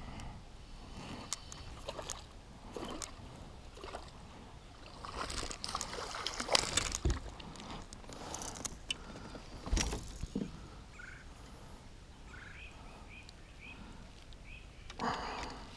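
A small smallmouth bass splashing at the surface as it is reeled in and swung out of the water beside a kayak, followed by scattered clicks and knocks as it is handled.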